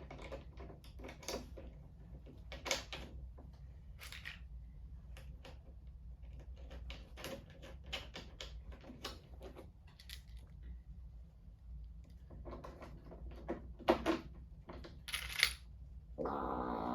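Irregular small metallic clicks and taps of hand tools and hinge hardware (bolts, washers, nuts, an Allen key) as door hinges are bolted on, a few louder knocks among them, over a steady low hum. Near the end a brief buzzy pitched sound lasts about a second.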